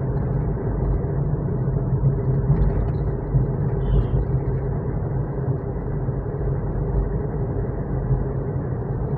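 Engine and road noise of a Honda car cruising in fifth gear, heard inside the cabin: a steady low drone with an even hum.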